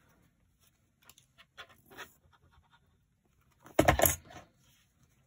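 Small handling noises of craft things on a desk: a few faint clicks, then a brief, loud clatter of hard knocks a little before four seconds in as the glue bottle is handled.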